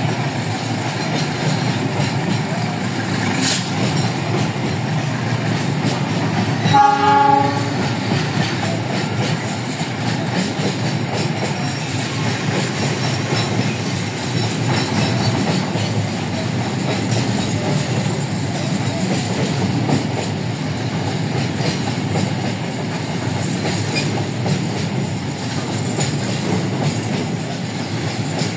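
Container freight train wagons rolling past close by, a steady rumble and clatter of wheels on the rails. About seven seconds in, a train horn sounds once for about a second.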